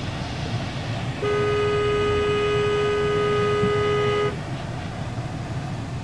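Car horn held down once for about three seconds, a steady two-note blare that starts and stops abruptly, over the low steady rumble of an idling car.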